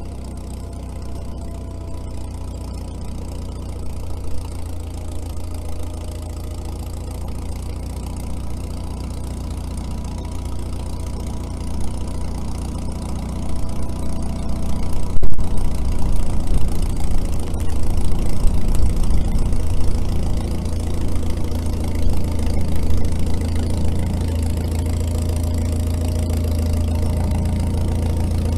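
International Harvester TD-6 crawler's diesel engine running as the crawler approaches through deep snow towing a tire drag. It grows louder and rougher about halfway through, with gusts of wind buffeting the microphone.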